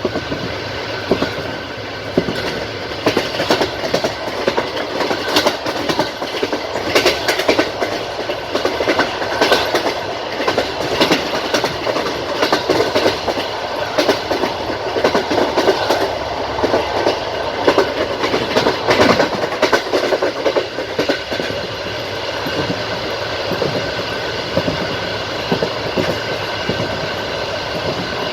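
Passenger train's wheels clattering over the rails at speed: a quick, uneven run of clicks and knocks over a steady rumble. The clicks are busiest through the middle and ease off somewhat near the end.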